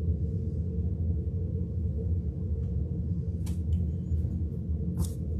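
Steady low background hum in a small room, with a few short light clicks in the second half.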